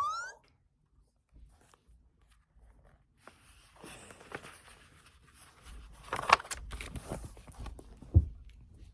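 Faint rustling and soft knocks of a book being handled, with a short dull thump near the end. The first few seconds are almost silent.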